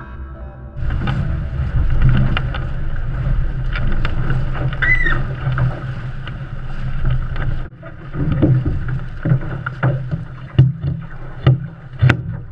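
Sound on board a Snipe sailing dinghy under way: water rushing along the hull and wind on the microphone, with frequent short knocks and a brief high squeak about five seconds in. Music stops under it just under a second in.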